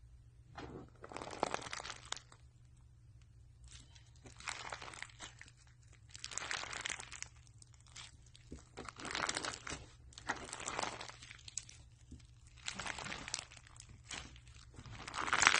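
Slime being squeezed and pressed by hand in repeated crackly bursts, about eight of them, with the last one, near the end, the loudest.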